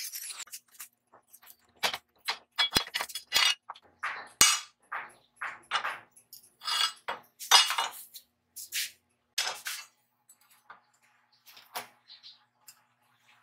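Cut steel plate pieces clanking and clinking against each other, the bench and a cast-iron bench vise as they are handled and set in place: a dozen or more irregular sharp metal knocks, thinning out near the end. An angle grinder's cutting noise stops right at the start.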